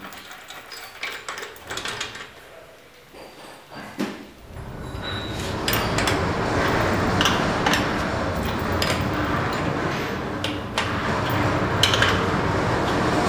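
Metal clicks and clanks as the clamp nuts of a hydraulic butt fusion welding machine are fitted and tightened with a wrench around an HDPE pipe. About four seconds in, a steady machine running noise starts and carries on under the clicks.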